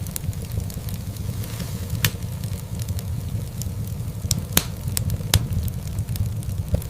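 Wood fire crackling in a fireplace: a steady low rumble of burning with scattered sharp pops, the loudest about two, four and a half and five and a half seconds in.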